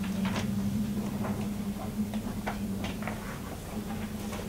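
Papers being handled and turned, a scattering of short rustles and light taps over a steady low hum.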